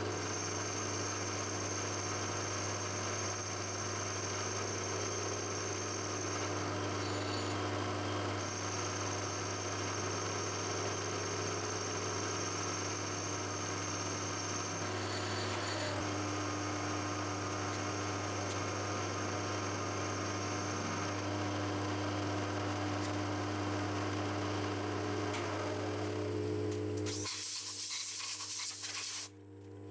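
Milling machine running an end mill through a steel blank: a steady motor hum with a high, steady whine from the cut. Near the end the hum drops out for about two seconds under a brief loud hiss.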